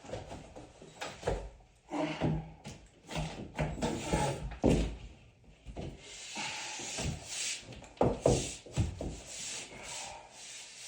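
Irregular knocks and thumps of building materials being handled and fitted against a wall, with stretches of scraping about six and eight seconds in.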